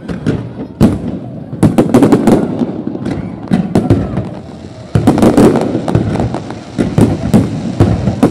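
Fireworks display: rapid bangs and crackles from aerial shells bursting in repeated volleys, with a low rumble between them; a fresh, louder volley breaks out about five seconds in.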